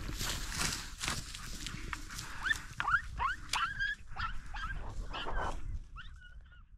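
Footsteps pushing through dry sagebrush, then from about two seconds in a run of short, squeaky, rising animal calls mixed with the rustling, fading out near the end.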